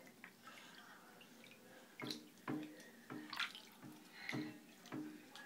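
Faint small splashes and drips of bathwater stirred by a toddler's hands in the tub, a scattered run of short ones starting about two seconds in.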